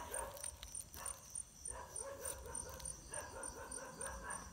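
Frogs calling in a chorus: trains of rapid croaks that start up again about every one and a half seconds, over a steady faint high insect ticking.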